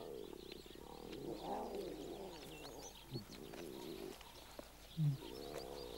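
Lion cubs suckling, making low hum-like sounds in several spells, with a short low grunt about five seconds in. Faint bird chirps sound in the background.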